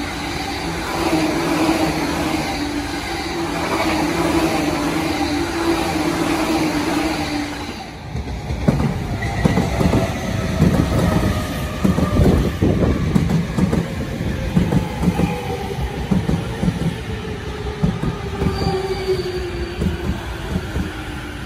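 A blue-and-cream rapid electric train runs through steadily on the far track. Then a yellow-striped commuter electric train pulls in alongside, wheels clattering over the rail joints. Its motor whine falls slowly in pitch as it brakes, with a brief high squeal near the end.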